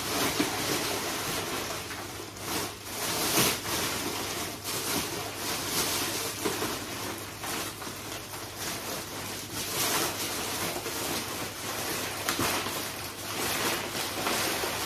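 Plastic bags rustling and crinkling as a white sack is pulled and handled out of a large green plastic bag, with irregular sharper crackles throughout.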